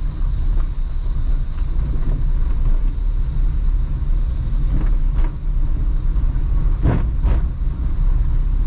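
Car being driven on a rough mountain road: a steady low rumble of engine and road noise with a steady high-pitched buzz above it. A few brief knocks come about five seconds in and twice close together about seven seconds in.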